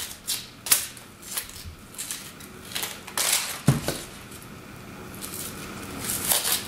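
Dry, papery onion skin crackling and rustling in scattered bursts as it is peeled off a large onion by hand, with a single soft knock on the plastic cutting board about three and a half seconds in.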